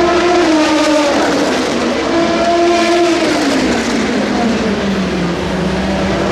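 Race cars passing at speed at the trackside, engines at high revs. Each engine's pitch holds and then falls as it goes by, twice, the second time sliding down steadily over about two seconds.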